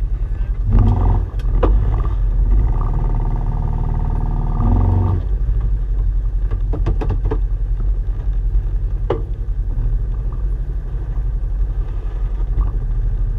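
Off-road 4x4 vehicle's engine running at low speed over a rocky trail, a constant low rumble heard from the hood. A few sharp knocks and clanks come from the vehicle jolting over rocks, and for about three seconds, starting about two and a half seconds in, the engine settles into a steadier drone with a clearer pitch.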